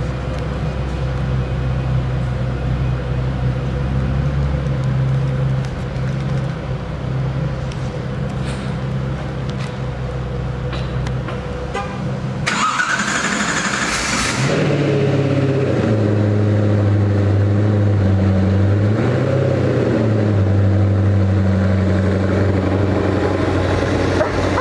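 A steady low hum, then about halfway through a Koenigsegg Agera RS's twin-turbo 5.0-litre V8 is cranked and fires with a sudden loud rush and a rising whine. It settles into a fast cold-start idle whose pitch dips and rises before holding steady.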